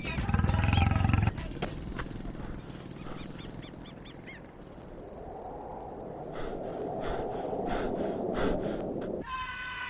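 A lion's growl, loud and low, lasting just over a second at the start. It is followed by a quieter steady rushing noise.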